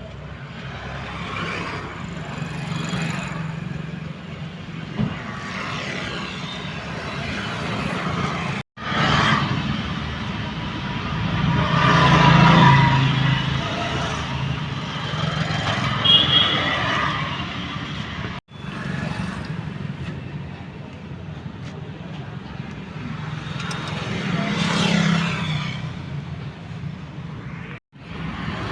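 Motor vehicle noise that swells and fades, in several clips cut together, with abrupt breaks about 9, 18 and 28 seconds in.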